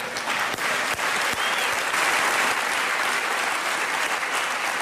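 Studio audience applauding, a dense steady clatter of many hands clapping.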